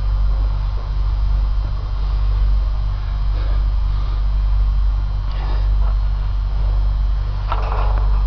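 Loud steady low electrical hum with a pulsing buzz on top of it. A few faint brief sounds come through it, the clearest near the end.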